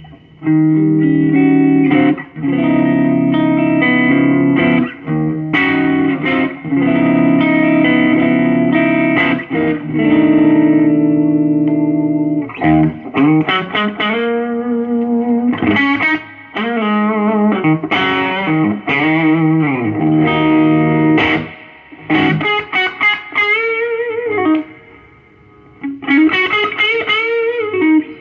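1974 Gibson Les Paul Custom with stock pickups played through a Crate Vintage Club 20 all-tube combo amp and an outboard reverb unit, in a lower-gain, lightly overdriven tone. Held, ringing chords for about the first twelve seconds, then single-note lead lines with string bends and vibrato.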